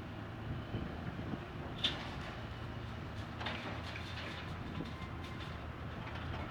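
Excavator's diesel engine running steadily. A sharp metallic clank comes about two seconds in, and a short rattling burst a little past halfway.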